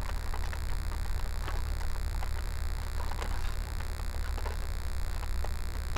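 Hard plastic spoon stirring hot water into a survival-food pouch: faint scattered scrapes and clicks, over a steady low hum.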